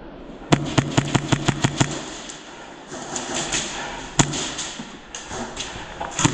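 Airsoft gun firing a rapid burst of about nine sharp shots, followed a couple of seconds later by a single shot. Another burst begins at the very end.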